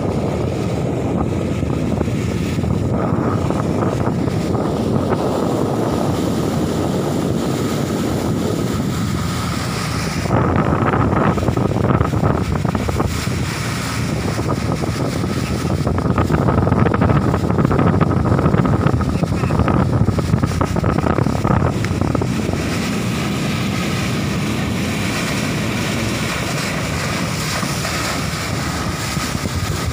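Fast boat running at speed on open water: a steady engine drone mixed with the rush of the wake along the hull and wind buffeting the microphone, which swells louder in gusts.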